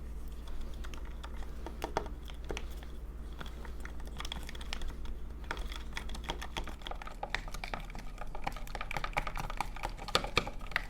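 Rapid, irregular clicking and tapping of a plastic stirrer against a plastic cup while slime ingredients with glitter and blue colorant are stirred. The clicks grow denser in the last few seconds, over a low hum that stops about seven seconds in.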